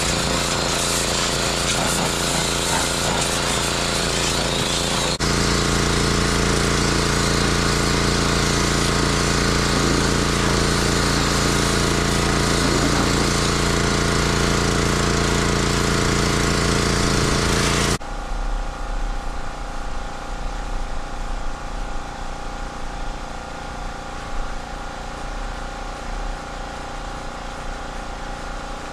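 Engine-driven pressure washer running and spraying steadily. About eighteen seconds in, the spray stops and the engine runs on more quietly.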